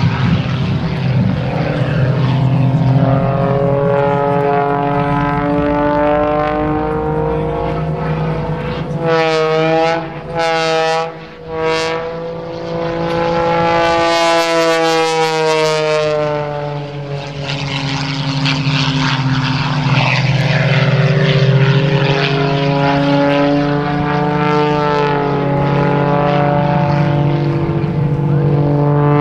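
Modified Pitts Special aerobatic biplane's piston engine and propeller running hard through aerobatic manoeuvres, the engine note swinging up and down in pitch as power and airspeed change. About ten to twelve seconds in, the sound drops sharply twice before picking up again.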